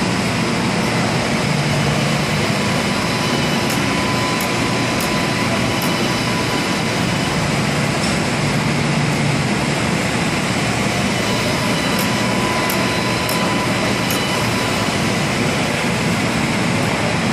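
Flatbed printer running as it prints: a steady mechanical whir and hiss of fans and motors, with a thin steady tone and a few faint ticks.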